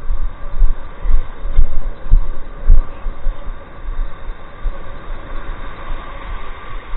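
Wind buffeting the microphone in irregular low thumps, over the steady wash of breaking surf.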